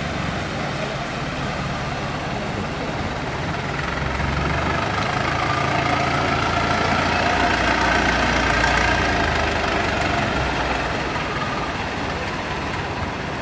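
Longtail boat engine running on the canal. It grows louder about four seconds in, then eases off again near the end.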